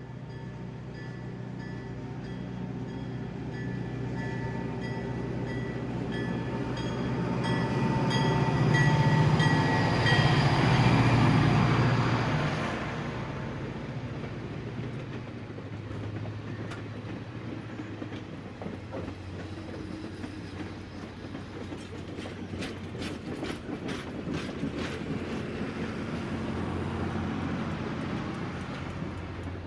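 N scale model freight train running on the layout: a steady locomotive hum with held tones grows louder, is loudest about ten seconds in as the locomotive passes close, then drops away. After that, a light, irregular clicking from the cars' wheels running over the track.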